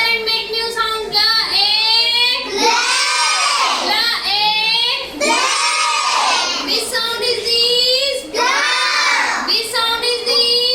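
A group of children chanting loudly in chorus, in drawn-out syllables that rise and fall, phrase after phrase with short breaks between.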